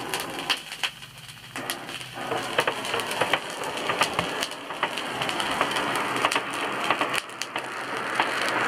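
Blacksmith's forge fire crackling and spitting sparks as the bellows blow air into it: a dense crackle of many small pops that thins briefly about a second in, then builds and grows louder.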